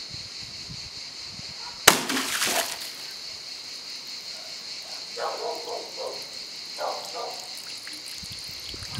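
A water balloon bursting about two seconds in: one sharp, loud pop followed by a brief splash of water.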